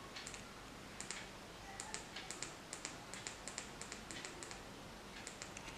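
Faint, irregular light clicking, a few clicks a second, starting about a second in.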